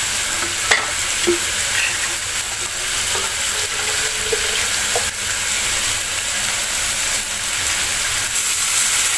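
Chicken pieces sizzling steadily as they sauté in oil in a wok, with a few small clicks.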